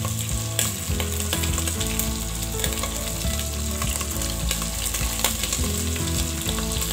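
Beef chunks sizzling as they fry and brown in a little oil in an aluminium pot, a steady hiss with many small crackles from spattering fat.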